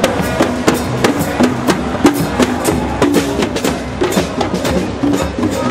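Street protest drum group: snare drums and hand drums beaten together in a quick, steady marching beat.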